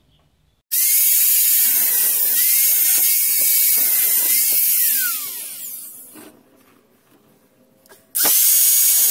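Angle grinder starts about a second in and cuts across the top of a steel go-kart front axle arm: a steady motor whine under a loud hiss. Around five seconds in it is switched off and winds down with a falling whine, then starts up again near the end.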